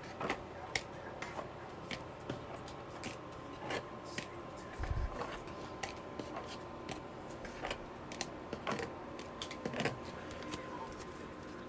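Trading cards being gathered and handled on a table: scattered light clicks and taps as cards are picked up and stacked, with a soft thump about five seconds in, over a faint steady hum.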